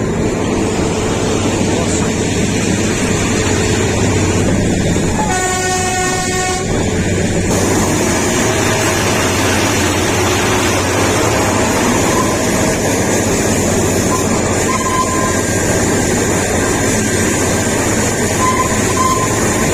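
Kalka–Shimla narrow-gauge toy train running with a steady rumble and rattle. Its horn sounds once about five seconds in, for about a second and a half.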